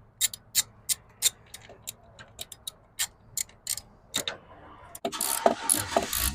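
A run of sharp, irregular clicks, about two a second, from hand work on the Volvo XC90's coil packs and their holders. About five seconds in it changes to a dense rattling and scraping of parts being handled.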